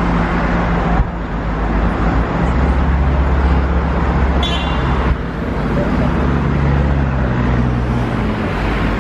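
Double-decker bus in motion: its engine hums steadily under constant road and traffic noise, the hum shifting in pitch a couple of times. A brief high squeak comes about four and a half seconds in.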